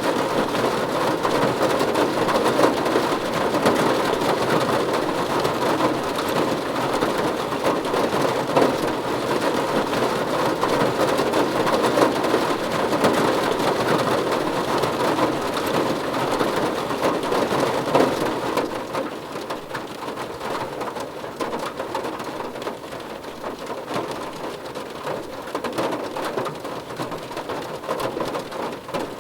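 Rain falling on a car's roof and windows, heard from inside the cabin: a dense, steady patter of drops. It eases and grows quieter about two-thirds of the way through.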